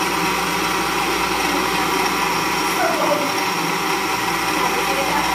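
Electric countertop blender running at a steady speed, blending cucumber into a smooth green drink; the motor gives a constant whine over a loud rushing noise.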